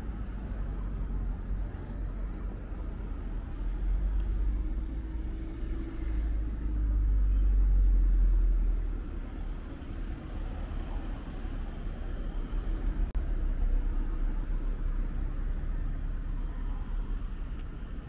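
Road traffic on a city street: cars passing with a low rumble, the loudest going by about seven to nine seconds in.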